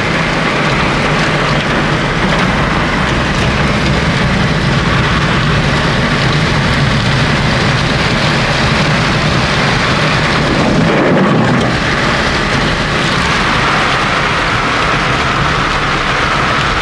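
Heavy rain pelting the roof and windows of a car, heard from inside the cabin, with the car's engine running underneath as a steady low hum. About ten seconds in, the rush briefly swells.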